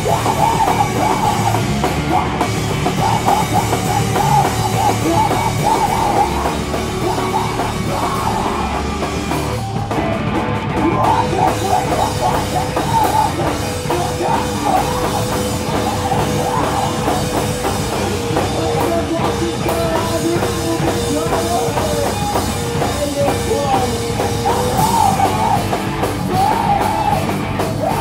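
Live rock band playing loud, with distorted electric guitar and a full drum kit, heard from the floor of a small club. A long held note runs through the middle.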